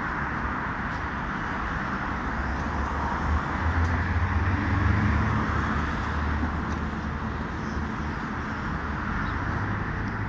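Road traffic on a city street: a steady rumble of traffic, with a vehicle's engine swelling as it passes and loudest about four to five seconds in.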